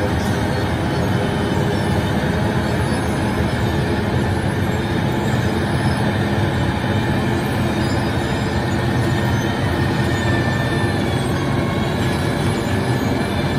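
Wirtgen W 120 CF compact cold milling machine milling asphalt pavement: its diesel engine, the milling drum grinding up the road surface and the discharge conveyor make a steady, unbroken mechanical rumble.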